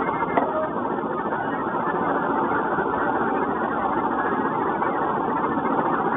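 Steady mechanical background noise at an even level, with a faint click about half a second in.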